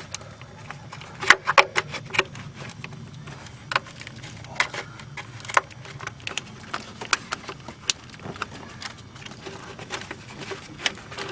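Irregular sharp clicks and snaps of plastic retaining clips and a plastic engine-bay part being worked loose by hand, over a low steady hum.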